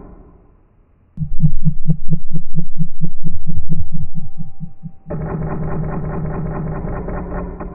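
Abstract film soundtrack: a low throbbing pulse at about four or five beats a second under a steady higher tone, starting about a second in. About five seconds in it switches to a dense buzzing drone that fades out near the end.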